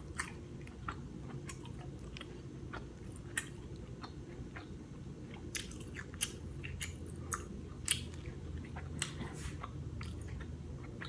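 A person chewing and eating seafood close to the microphone, with scattered sharp clicks and wet mouth smacks. A steady low hum sits underneath.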